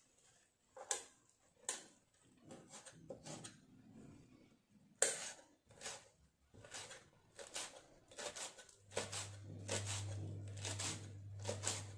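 Kitchen knife chopping fresh coriander on a stainless steel chopping board, the blade tapping sharply against the steel. The taps are scattered at first, then settle into a steady rhythm of about two to three a second about five seconds in. A low steady hum comes in about nine seconds in.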